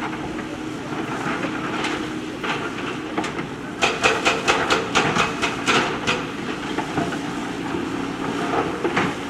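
JCB backhoe loader's diesel engine running steadily. About four seconds in comes a quick run of sharp metallic clanks, about five a second, lasting about two seconds.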